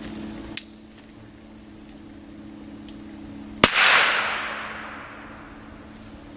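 A single loud bang from an Italian firecracker about three and a half seconds in, its echo fading away over a second or so. A small sharp click comes before it, near the start.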